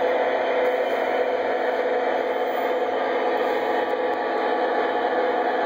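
Lionel O-scale model train running on the layout's track, a steady rolling rumble with motor whir.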